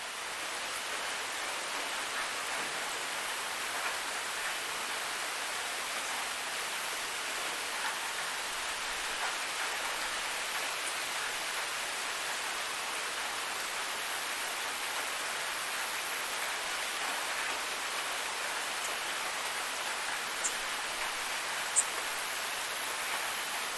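Soft rain falling steadily, an even hiss of many small drops, with a couple of sharp ticks of single drops near the end.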